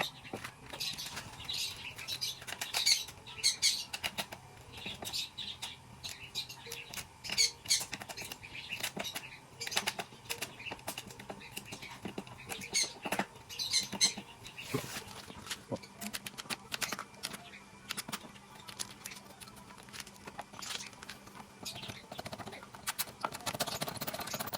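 Budgerigars chirping and chattering, with frequent short flutters, scratches and clicks at an irregular pace.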